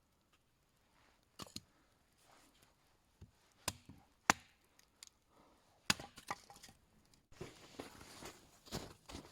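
Dry wood being split into thin, pencil-sized kindling sticks: a handful of sharp, separate cracks and knocks as the pieces split, then a busier stretch of scraping and knocking near the end.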